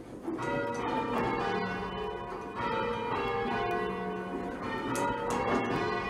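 Church bells rung full-circle on ropes, several bells striking one after another with long ringing tones that overlap.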